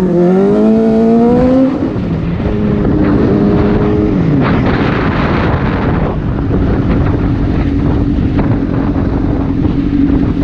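Sport motorcycle engine pulling under acceleration, its pitch climbing until an upshift about two seconds in. It holds, eases off around four seconds, then cruises at a steady pitch, with wind rushing over the microphone.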